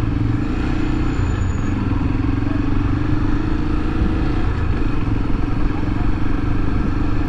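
A 2013 Honda XRE300's single-cylinder engine running steadily at low road speed while riding, heard from the rider's seat.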